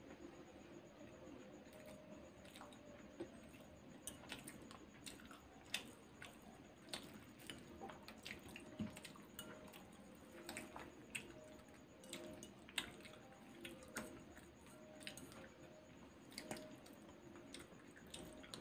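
Faint eating sounds: a metal fork clicking and scraping on a plate at irregular moments, with soft chewing, over a low steady room hum.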